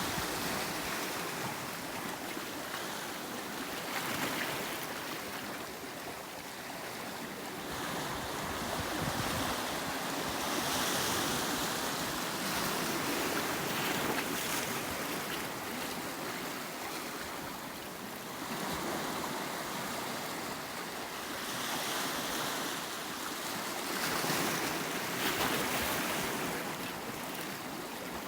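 Ocean waves breaking and washing against a rocky shore, with swells every few seconds, and some wind on the microphone.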